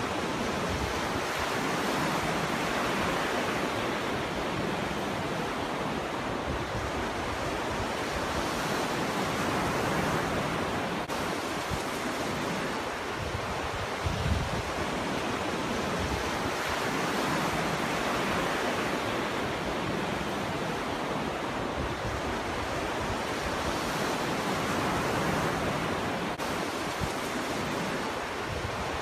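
Ocean surf breaking and washing up a shore: a steady rush that swells and fades every seven or eight seconds. About halfway through, a gust of wind buffets the microphone with a brief low rumble.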